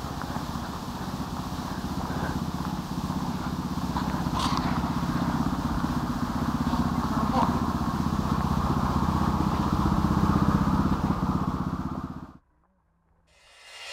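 A motor running steadily, a low rumble with an even pitch, which cuts off suddenly about twelve seconds in.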